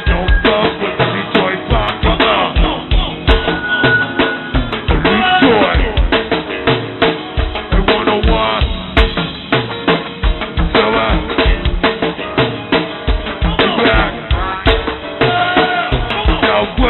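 Go-go band playing live: a busy drum-kit groove of kick, snare and rimshots under bass and other pitched parts, on a muffled, poor-quality PA tape recording.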